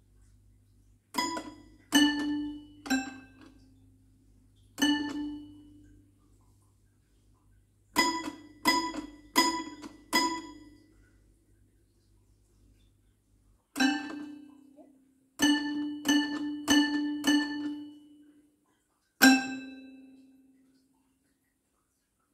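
Child's toy piano played one key at a time: about fourteen single notes, each struck and ringing out briefly before fading, in small irregular groups separated by pauses.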